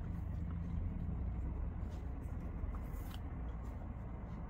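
Faint soft ticks and rustles of cotton macrame cord being handled and knotted, a few times, over a steady low background rumble.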